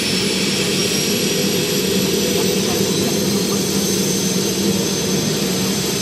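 Bell 412EPI helicopter running on the ground before takeoff, rotors turning: the high whine of its twin turboshaft engines rises slowly in pitch over a steady rumble of engine and rotor.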